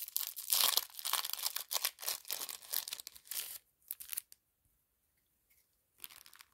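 A trading-card pack wrapper being torn open and crinkled: a rapid run of crackles and tears for about three and a half seconds, then it stops.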